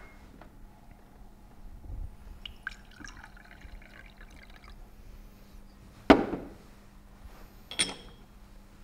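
Red liquid poured from a cut-crystal decanter into a crystal wine glass, trickling for about two seconds. Then a sharp knock as the decanter is set down, and near the end a ringing glass-on-glass clink as its crystal stopper goes back into the neck.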